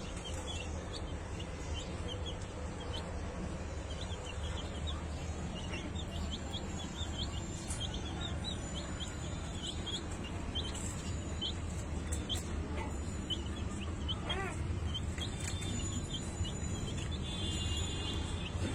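Birds chirping: many short, high chirps throughout, with one longer call with a wavering pitch a little past halfway, over a steady low hum.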